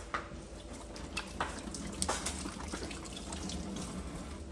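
Tap water running into a stainless steel sink while hands are rinsed under the stream, with a few brief clicks in the first couple of seconds.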